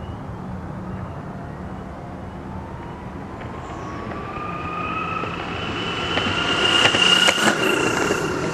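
A single-motor, belt-driven electric longboard approaches and passes close by at speed. Its motor whine rises in pitch and grows louder over a rolling rumble of wheels on pavement, and is loudest about seven seconds in as it goes past.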